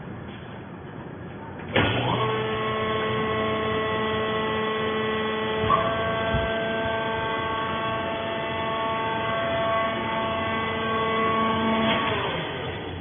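Fiber baling machine running: a steady, whining hum with several held tones that starts suddenly about two seconds in and dies away near the end.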